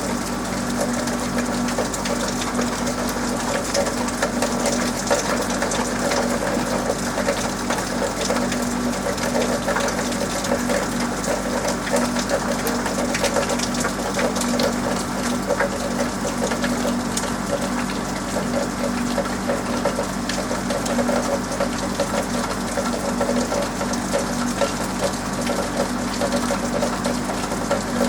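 Steady rain falling on a roof, with many small drop ticks, over a constant mechanical hum.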